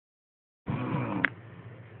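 A sleeper snoring: a low-pitched snore starts about two-thirds of a second in, ends with a short sharp click about a second later, and quieter breathing follows.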